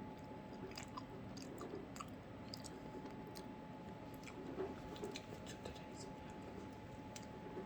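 A person chewing a Nature Valley granola bar with cotton candy close to the microphone: small, irregular wet mouth clicks and soft crunches.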